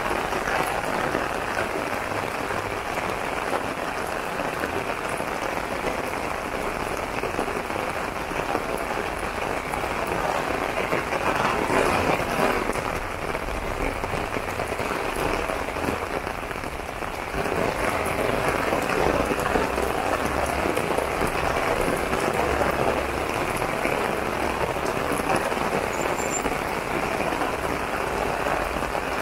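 Heavy rain falling steadily on an umbrella overhead. It swells about twelve seconds in, eases briefly around seventeen seconds, then picks up again.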